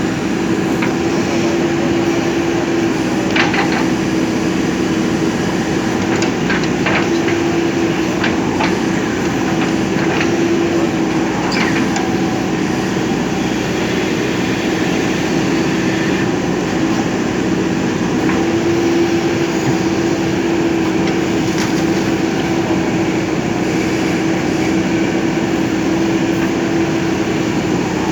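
JCB backhoe loader's diesel engine running at a steady pitch, with scattered clicks and knocks from the work.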